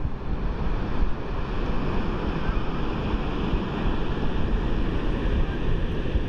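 Ocean surf washing onto the beach, with wind buffeting the microphone: a steady rushing noise with a rumbling low end.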